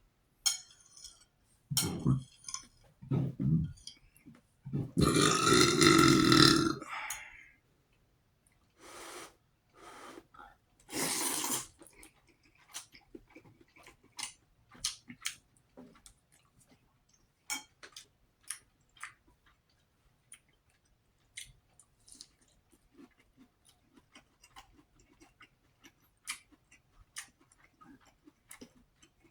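A person burping loudly several times, the longest a drawn-out burp about five seconds in. After that come quieter eating noises: chewing and many short faint clicks.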